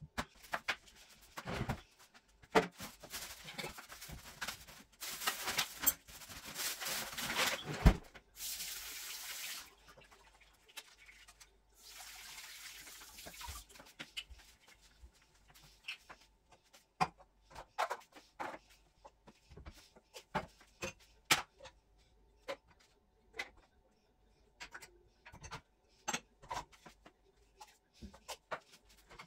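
Kitchen sink tap running in several bursts of a few seconds each, then a long run of scattered knocks and clinks of things being handled.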